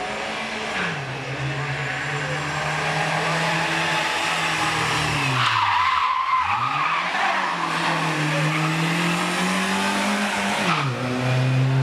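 Rally car driven hard on tarmac, engine at high revs. About six seconds in the engine note falls steeply and climbs again as the tyres squeal through the turn. Shorter drops in pitch near the start and near the end sound like gear changes.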